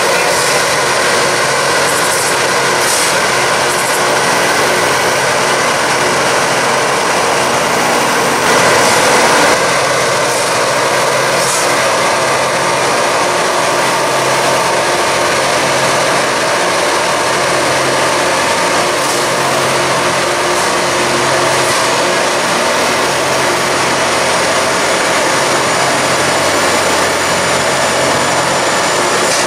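Loram rail grinder at work: its grinding stones on the rails make a loud, steady rushing hiss over the drone of its diesel engines, with a short louder surge about nine seconds in.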